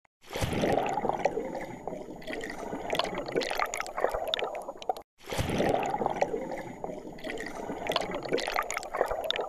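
Water bubbling and gurgling, with scattered drip-like clicks. The same stretch of about five seconds plays twice, broken by a brief silence just after five seconds.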